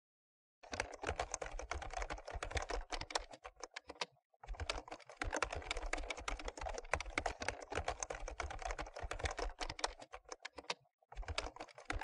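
Fast typing on a computer keyboard: a dense, uneven run of key clicks that starts under a second in, with two brief pauses, around four seconds in and near the end.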